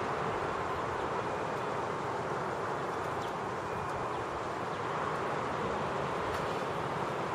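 Steady outdoor background noise: an even rush with a few faint ticks.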